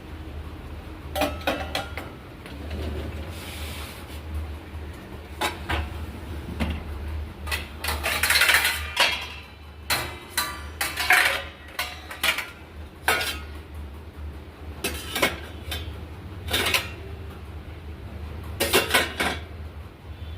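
Dishes and cutlery being handled, clinking and clattering in irregular knocks over a steady low hum.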